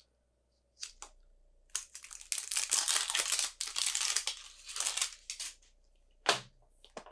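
Packaging crinkling and tearing in a run of crackles as a mystery toy capsule ball is unwrapped by hand, with one sharp click near the end.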